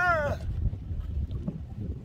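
A man's short wordless vocal cry, falling in pitch, fades out within the first half second. After it, wind buffets the microphone in a steady low rumble.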